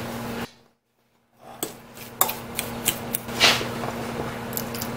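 Metal spoon clinking and scraping against a ceramic mixing bowl in a run of sharp, irregular clicks, after about a second of dead silence near the start.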